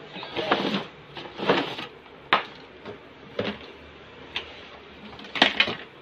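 A toy helicopter's box being opened and its packaging handled: rustling with several sharp clicks and knocks, a cluster of them near the end.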